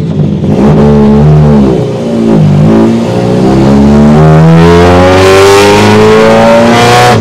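Turbocharged Toyota BEAMS engine in an S14 accelerating under load: the revs climb, fall and pick up again about two seconds in, then rise steadily for about four seconds and drop sharply at a gear change at the very end. A rising hiss joins the engine note in the last couple of seconds of the climb.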